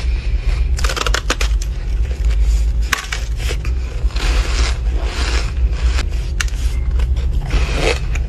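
Close-miked bites into a frosty block of ice and crunchy chewing of the pieces: several sharp cracks, a cluster about a second in and more near three and six seconds, with grainy crunching between.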